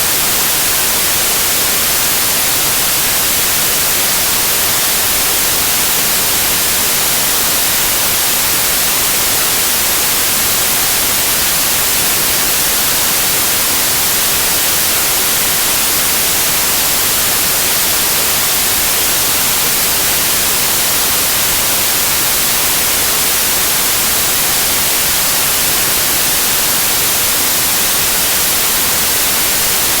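TV-static white noise: a steady, even hiss, loudest in the high treble.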